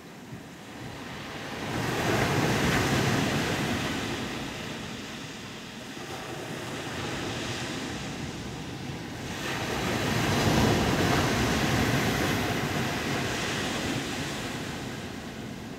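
Atlantic surf breaking on a sandy beach: a steady wash of waves that swells twice, about two seconds in and again around ten seconds in.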